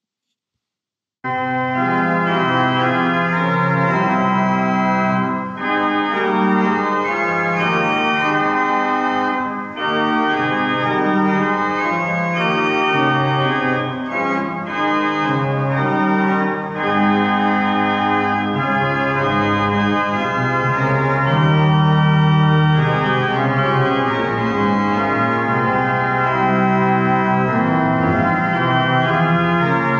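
Organ music playing slow, sustained chords, starting about a second in after a brief silence.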